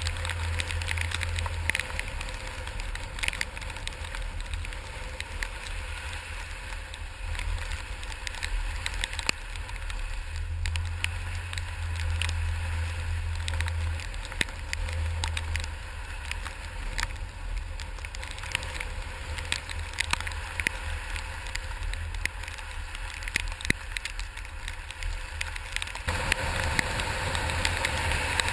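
Wet snow falling and pattering, a steady hiss full of small crackling ticks over a low steady rumble, with a change in the sound near the end.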